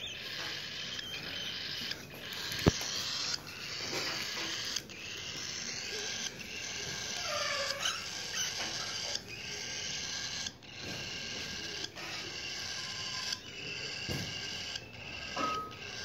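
Cockatiel chicks making raspy, repeated begging calls, broken into stretches about a second long, with a few short whistled notes. A single sharp click sounds about three seconds in.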